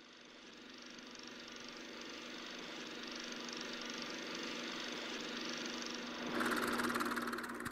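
Mechanical whirring sound effect under a logo sting, steady with a low hum, fading up and growing slowly louder; about six seconds in, a louder, fast rattling layer joins.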